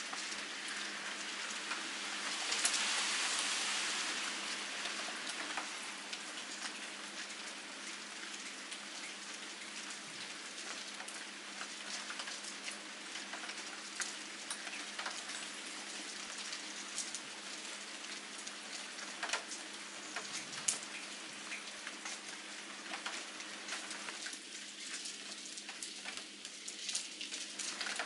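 Steady rain falling on wet ground, with scattered sharp ticks of drops or drips; it grows briefly heavier a few seconds in.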